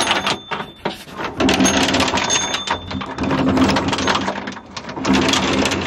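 Rusty anchor chain clanking and rattling link on link as it is hauled by hand and fed down into the anchor locker, where the chain has clogged up.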